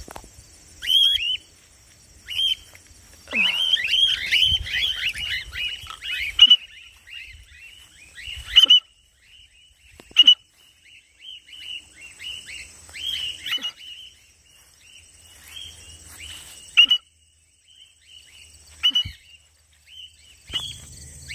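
Cockatiels calling: short whistled chirps that drop in pitch, crowding into a thick flurry of several birds about three seconds in, then single calls every second or so.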